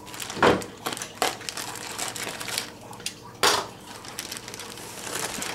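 Clear plastic wrap on a laptop crinkling and crackling as it is handled and pulled away, in irregular small crackles with two louder ones about half a second in and again about three and a half seconds in.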